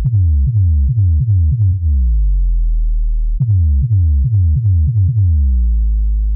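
Electronic bass track made for subwoofers: runs of deep bass hits, about three a second, each sliding down in pitch, broken by long held deep bass notes, with almost nothing in the treble.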